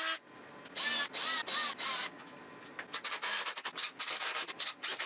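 Cordless drill driving a screw up into the chair's seat bottom in a few short trigger bursts, its motor pitch bending with each pull. After that comes a quick run of scratchy rubbing strokes against the wood.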